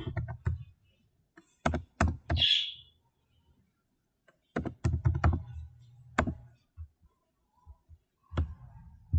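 Keystrokes on a computer keyboard, in short irregular bursts with pauses between.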